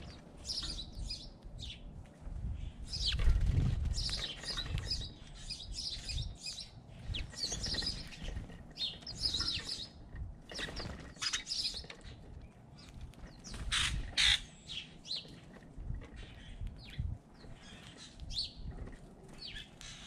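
Small birds at a feeder chirping in quick, short notes throughout, with wing flutters and low thumps close to the microphone, the loudest about three and a half seconds in.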